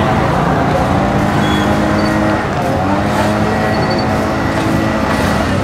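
Busy road traffic, with motor vehicle engines running close by and their pitch shifting a couple of times.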